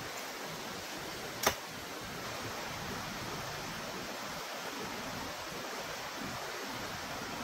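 Steady, even rushing noise with one sharp click about one and a half seconds in.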